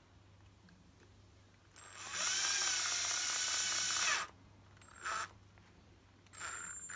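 Ryobi cordless drill/driver driving the screws of an RC truck's differential case: one whining run of about two seconds, then two short bursts.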